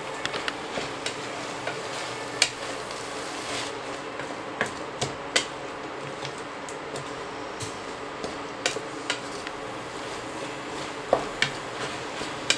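Wooden spatula stirring chopped pechay (bok choy) greens in a frying pan, with irregular clicks and knocks of the spatula against the pan over a steady sizzle of frying.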